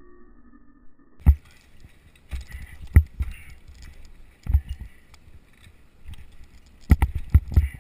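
Climbing spurs (gaffs) being kicked into the bark of a pine trunk, each strike a sharp knock with a heavy thud, about one every second or two, then three quick strikes near the end.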